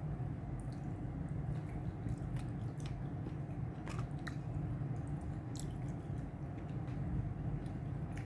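A person chewing food close to the microphone: scattered small wet clicks and mouth sounds over a steady low hum.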